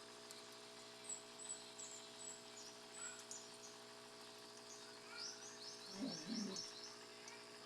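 Birds chirping, with a quick run of high chirps about five seconds in and two short low hoots soon after, over a steady hum.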